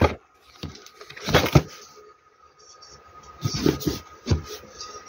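A cardboard shipping box being handled and shifted about: several dull knocks and scuffs of cardboard, the loudest about one and a half seconds in, over a faint steady tone.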